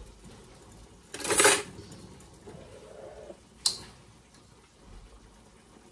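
Kitchen utensils being handled at a wok: a loud half-second scrape about a second in, then a single sharp clink just before the four-second mark.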